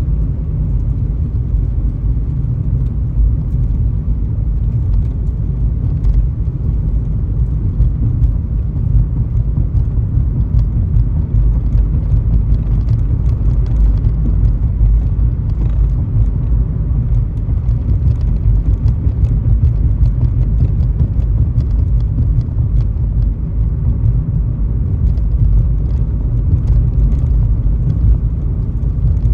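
Car driving on a road: a steady, loud low rumble of tyre and engine noise with no change in pace.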